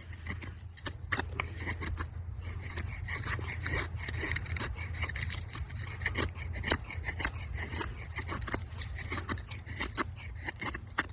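Victorinox Venture's flat-ground 14C28N steel blade shaving thin curls off a wooden stick to make a feather stick: a quick run of repeated scraping strokes.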